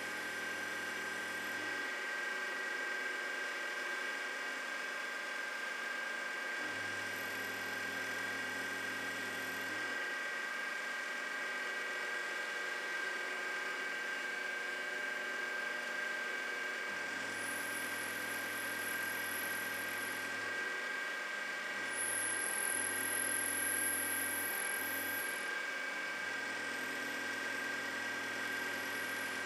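Grizzly G0755 mill/drill running with a steady high-pitched motor whine while drilling into a workpiece held in the vise. A low hum comes and goes several times.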